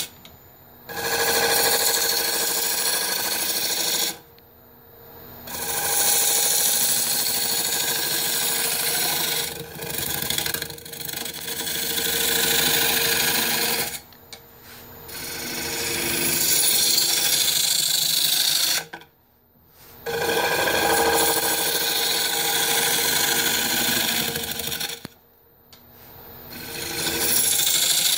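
Turning gouge cutting into the face of a wooden platter spinning on a lathe, roughing out the interior: a scraping, hissing cut in passes several seconds long, broken by about five short pauses.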